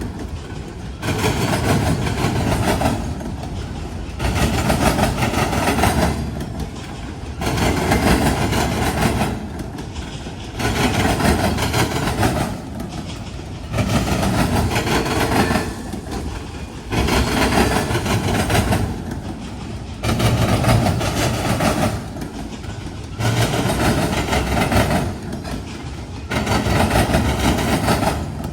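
Freight train cars rolling across a railroad diamond crossing. The wheels pound over the crossing in loud bunches about every three seconds, car after car, with quieter gaps between.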